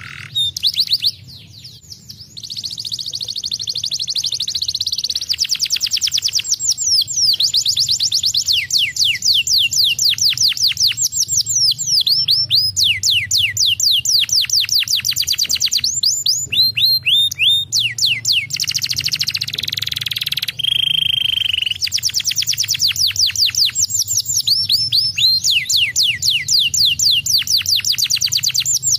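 Domestic canary singing a long, loud song of fast trills: rapid runs of repeated downward-sweeping notes broken by buzzy rolls, with a short pause about a second in and one held whistle a little past two-thirds through.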